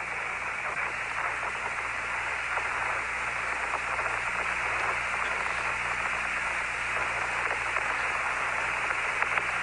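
Steady hiss of static on the Apollo 15 air-to-ground radio link between transmissions, with a faint low hum underneath.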